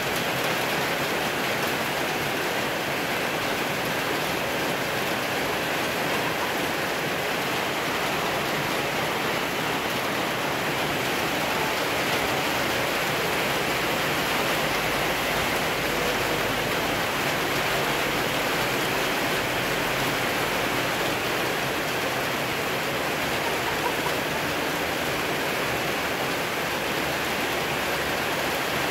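A steady, even rushing noise, like heavy rain or running water, holding constant throughout.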